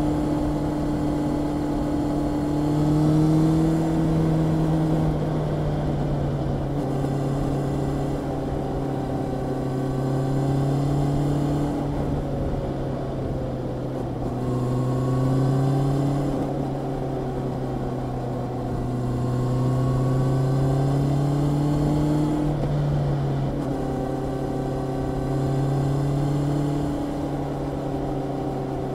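Honda CB650R's inline-four engine running under way, heard raw from the bike. Its pitch climbs and falls back several times as the throttle is worked.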